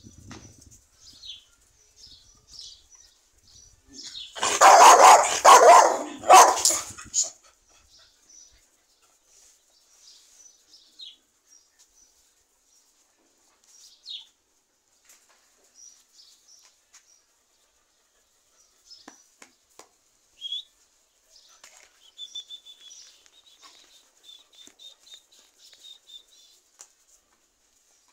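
A group of dogs making a loud burst of noise that lasts about three seconds, a few seconds in, then only faint scattered ticks.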